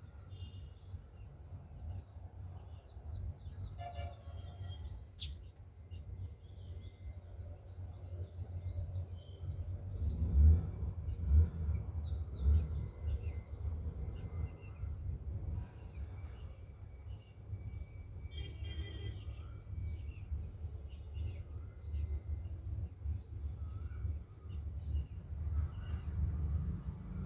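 Outdoor ambience: small birds chirp now and then over a steady high insect drone, with a low rumble on the microphone that is loudest about ten to thirteen seconds in.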